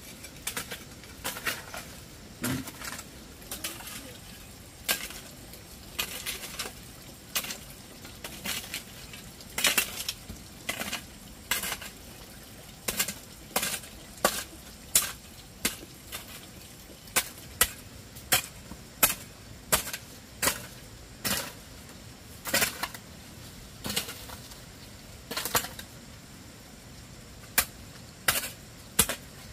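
Metal hoe blades chopping and scraping through clumps of red earth, an irregular series of sharp knocks and scrapes about one or two a second.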